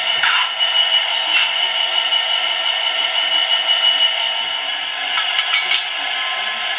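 Bachmann Class 66 model locomotive's DCC sound decoder playing a diesel engine sound through the model's small speaker, steady and thin with no bass, over a few sharp clicks and rattles, with a cluster of them near the end.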